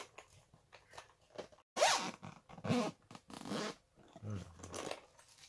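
Zipper of a black speaker carrying case being pulled open in several short strokes, starting about a second and a half in.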